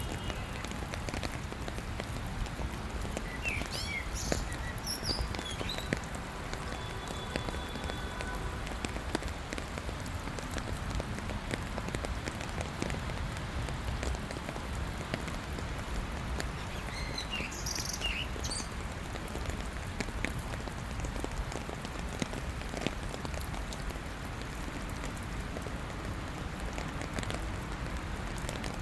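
Steady rain falling, a dense patter of drops on hard surfaces. A few short high chirps sound twice, about four seconds in and again near eighteen seconds.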